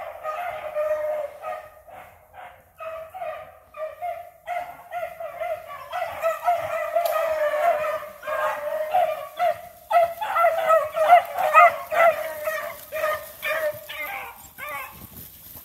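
A pack of beagles baying in full cry as they run a rabbit's scent trail, many voices overlapping. The cry grows louder as the pack comes close, loudest about ten to twelve seconds in, then thins out near the end.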